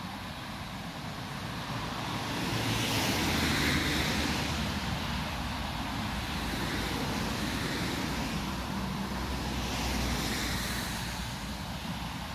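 Steam locomotive working a train toward the listener: a continuous rushing exhaust sound that swells twice, over a low rumble that grows a couple of seconds in.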